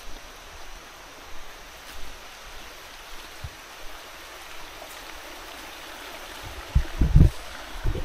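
Steady rushing of a jungle stream. A few loud, low thumps come near the end.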